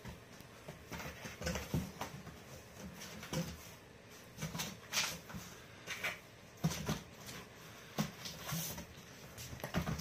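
A cat scrabbling about inside a cardboard box: irregular scuffs, scratches and taps of paws against the cardboard.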